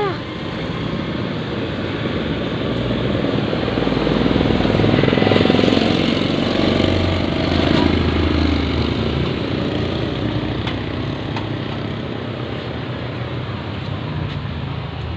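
Small petrol engine of a home-built motorised bicycle running, growing louder about four seconds in and easing off again after about eight seconds.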